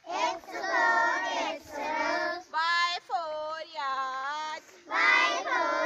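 A group of young children chanting in unison in a sing-song voice, in short phrases with brief breaks between them, as in reciting the English alphabet aloud.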